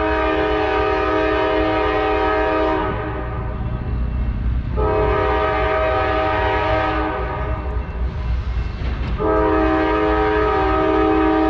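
Norfolk Southern freight locomotive's multi-note air horn blowing long blasts at a grade crossing: one ending about three seconds in, another from about five to seven seconds, and a third starting about nine seconds in. A steady low rumble from the passing train runs underneath.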